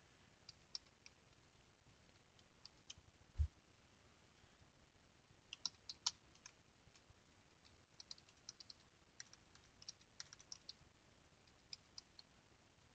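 Faint typing on a computer keyboard: keystroke clicks in short, scattered runs. A single low thump comes about three and a half seconds in.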